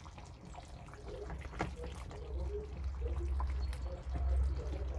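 A ladle scooping and stirring thick palm-nut soup in a steel pot, with liquid slopping and a few clicks as the ladle knocks against the pot.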